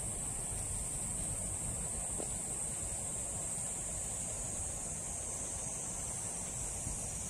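A steady, high-pitched insect chorus, with a low background rumble underneath.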